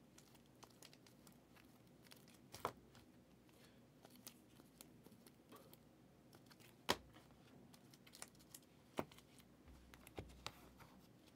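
Near silence with scattered light clicks and faint rustling, about five noticeable clicks with the sharpest one about seven seconds in: trading cards and their plastic sleeves or holders being handled on a table.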